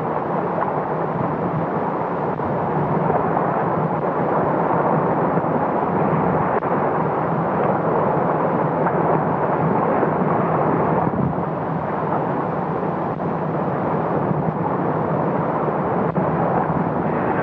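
Steady rushing noise with a faint low hum underneath, unbroken and even in level.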